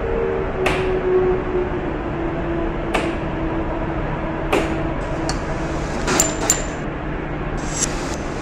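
Shoemaker's metal hammer tapping leather laid on a stone slab: a few sharp, separate knocks a second or two apart, two of them in quick succession about six seconds in.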